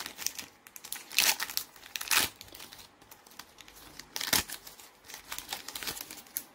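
Foil Pokémon TCG booster pack wrapper crinkling and crackling as it is handled and torn open. The loudest crackles come about one, two and four seconds in.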